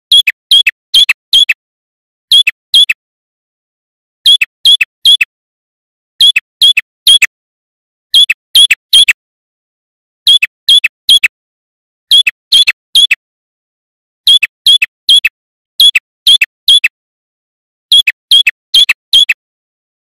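Male red-headed prenjak singing loud groups of three or four sharp, high chirps, each group repeated about every two seconds.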